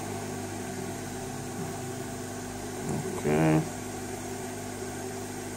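A steady, even machine hum with a low drone and a few fixed tones, like a small fan or motor running on the bench.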